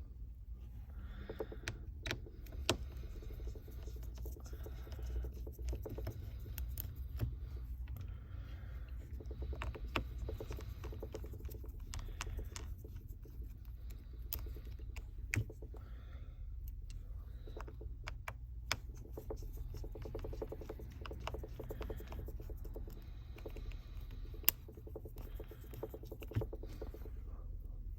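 Small, scattered clicks and taps of hand tools and parts being handled while a smartphone is taken apart, over a steady low hum.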